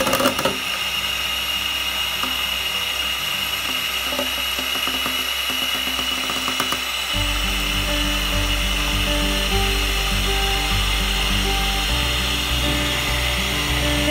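Electric hand mixer whirring steadily as it beats eggs in a bowl, with a brief knock right at the start; the sound gets a little fuller about halfway through.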